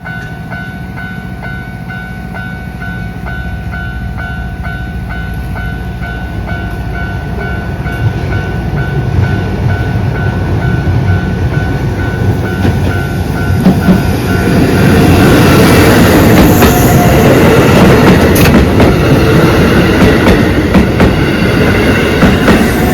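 Japanese level-crossing warning bell clanging about twice a second as a Keisei Kanamachi Line electric train approaches, its rumble growing louder. From about fifteen seconds in the train passes over the crossing loudly, wheels clacking over the rail joints and drowning out the bell.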